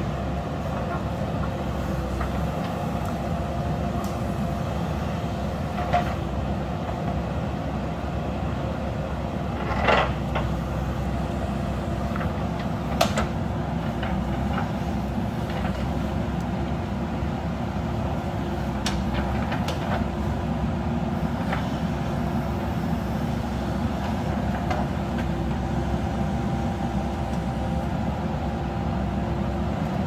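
JCB backhoe loader's diesel engine running steadily under load while the backhoe arm digs, with a few sharp knocks from the arm and bucket, the loudest about ten seconds in.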